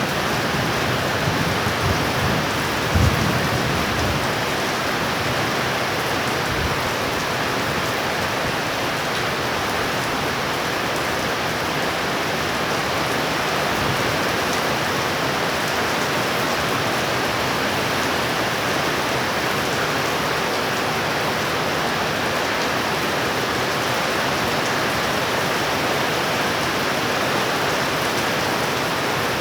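Heavy thunderstorm rain pouring down steadily, a dense even hiss. A low rumble of thunder dies away over the first few seconds, with a brief low surge about three seconds in.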